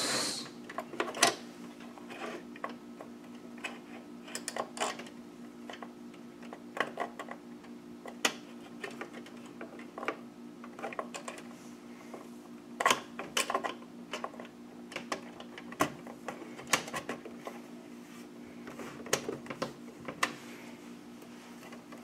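Irregular clicks, taps and scrapes of a PCIe expansion card and its metal bracket being worked into a motherboard slot and the case's rear bracket opening, as a card that is out of alignment, its bracket bent, is pushed into place. A steady low hum runs underneath.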